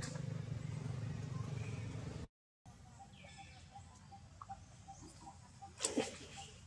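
Outdoor ambience with a steady low rumble that stops abruptly about two seconds in. Then comes a quieter background with a faint, regular chirping about three times a second, and one brief sharp call or rustle near the end.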